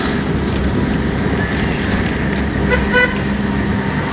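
Steady road and engine rumble of a moving vehicle, with a vehicle horn tooted twice in quick succession about three seconds in.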